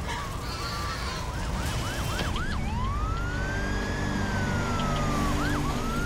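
Emergency vehicle siren: a run of about five quick rising-and-falling sweeps, then a slow wail that climbs and falls over about three seconds and starts climbing again near the end, over a steady low rumble.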